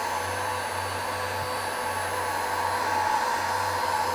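Electric heat gun running steadily: a continuous rush of blown air with a faint motor whine, shrinking heat-shrink tubing onto a cable end.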